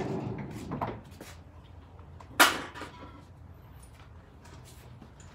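Shuffling handling noise at the start, then a single sharp knock about two and a half seconds in that rings briefly before dying away.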